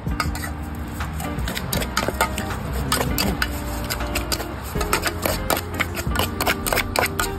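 Large metal spoon clinking and scraping against an aluminium pot in quick, uneven strokes as raw minced beef is mixed in it.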